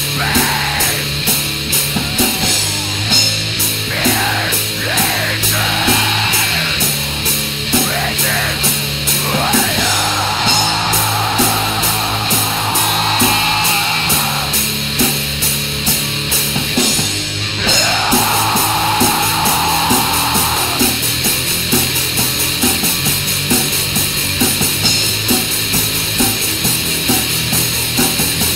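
Finnish black metal recording: dense distorted guitars and fast, even drumming, with harsh voice-like vocals over the first half, which drop out around the middle and come back briefly.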